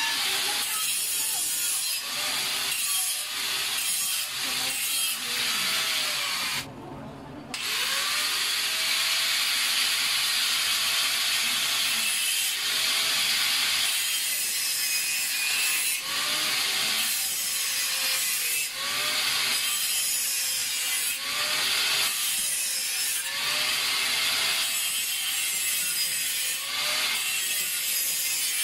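Wood being sawn: steady rasping strokes in a regular rhythm, roughly one a second, with a short pause about seven seconds in.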